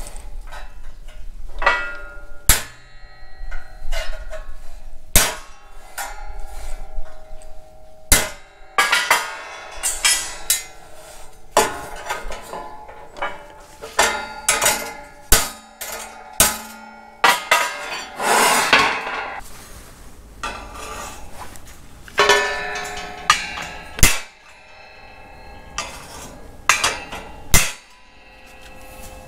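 Ball-peen hammer striking a sheet-steel tractor grille panel on a steel plate: a long run of irregular metal-on-metal blows, each ringing briefly, as bent slats are knocked back into contour. The blows stop near the end.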